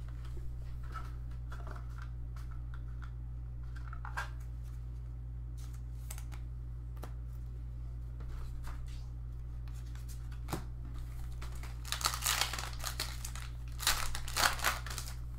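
Trading-card pack wrappers crinkling and tearing open, with light clicks and rustles of cards being handled. The loudest crinkling comes in two spells near the end.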